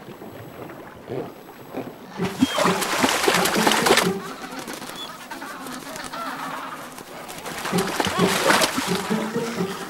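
Adélie penguins calling in short, croaking bursts, with two stretches of water splashing and sloshing, about two seconds in and again near the end.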